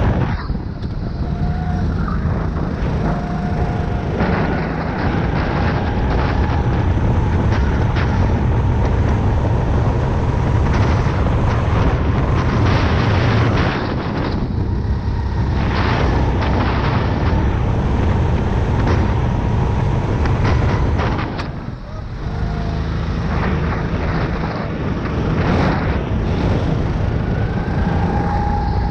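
Go-kart engine running at high revs, heard from a camera mounted on the kart. Its pitch rises and falls with speed, and it quietens briefly about three-quarters of the way through before its pitch climbs again.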